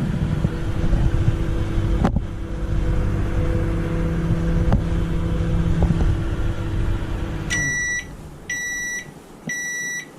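Rubine built-in microwave oven running its microwave function: it hums steadily, with a click about two seconds in. About seven and a half seconds in the hum stops and the oven sounds three high beeps about a second apart, marking the end of a 10-second cycle. The oven now starts and runs, its start-button fault repaired.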